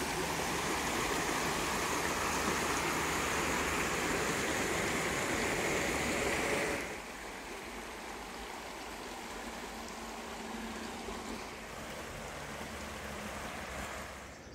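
Shallow river rushing over rocks in a steady rush of water. The sound drops noticeably in loudness about seven seconds in and stays steady after that.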